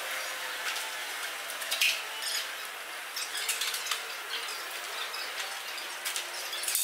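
Depot work sounds played back at eight times speed: a busy patter of quick clicks and high squeaks over a steady hiss.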